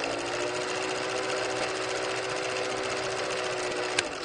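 Old film projector sound effect for a countdown leader: a rapid, even mechanical clatter over a steady motor hum, with a sharp click about four seconds in, starting to fade right at the end.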